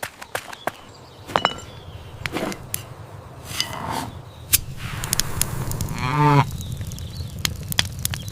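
A cow mooing briefly about six seconds in, over a low steady hum and scattered sharp clicks.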